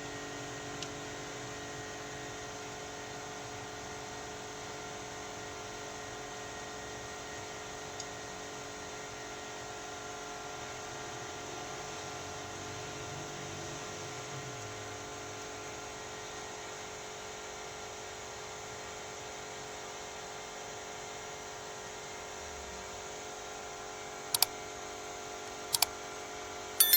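Steady mechanical hum made of several steady tones, with three sharp clicks near the end.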